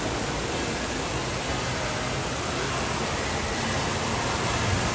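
Indoor water park ambience: a steady, even rush of running and splashing water, with no distinct events.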